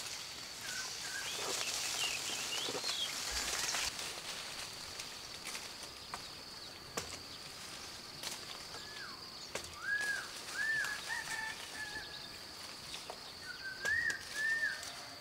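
Leafy branches of a sapodilla tree rustling as fruit is picked by hand, loudest in the first few seconds, with a few sharp clicks. From about nine seconds in, a bird calls in two short runs of arched, whistled notes.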